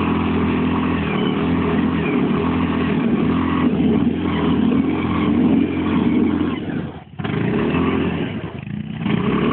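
ATV engine running and revving, its pitch wavering up and down. The sound drops out sharply for a moment about seven seconds in and dips again shortly before the end.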